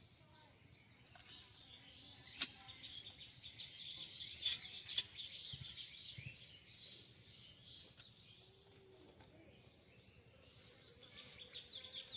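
Small birds chirping in quick, high twittering runs, loudest in the middle and again near the end, with a few sharp clicks.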